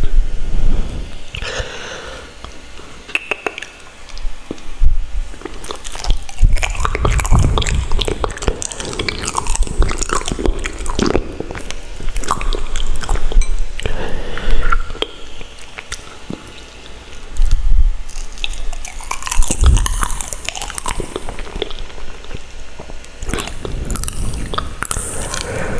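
Close-miked chewing and biting, with wet mouth clicks and smacks, as food dipped in Buldak carbonara sauce is eaten. A few low thumps come in between.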